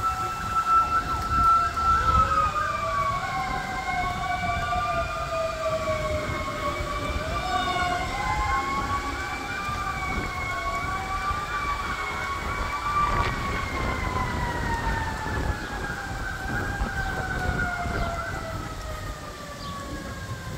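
A siren sounding continuously. Its pitch holds steady at first, then wavers slowly up and down, and from about two-thirds of the way through it falls steadily. A low rumble of background noise sits underneath.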